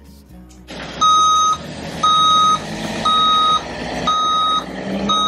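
Reversing alarm on a Mercedes Sprinter van backing up, beeping about once a second. Each beep is a single high tone lasting about half a second, with five in all, starting about a second in over a steady noise.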